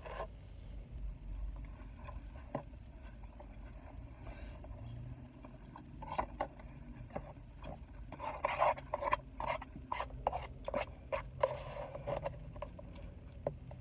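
Close-up eating sounds: chewing and crunching of food, with a run of quick crunchy strokes in the second half, over a faint low hum.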